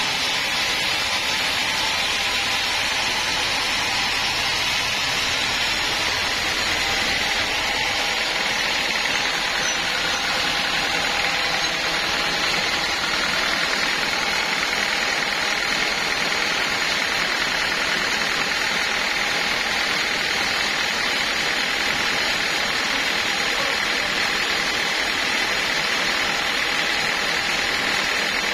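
Large band sawmill running steadily between cuts, with its blade and drive making a constant, even noise that does not change.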